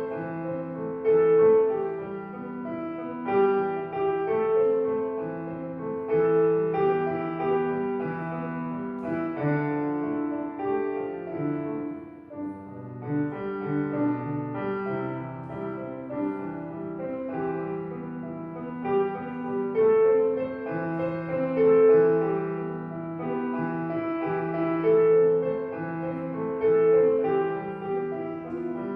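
Street piano being played: a continuous melody of notes over lower sustained notes, dipping briefly about twelve seconds in.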